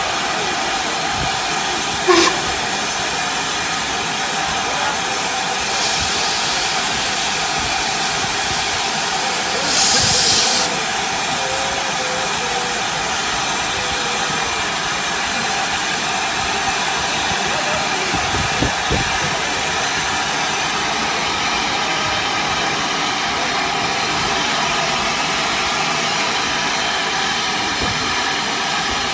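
LMS Black 5 steam locomotive hissing steadily as steam escapes from around its cylinders. A sharp metallic knock comes about two seconds in, and a louder gush of steam lasts about a second around ten seconds in.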